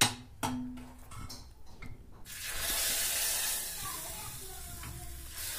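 A metal clink at the start with a brief ring, then, about two seconds in, the loud hiss of hot tempering oil with cumin, dried chilli and curry leaves sizzling as it hits the fenugreek rasam. The hiss fades over the next few seconds.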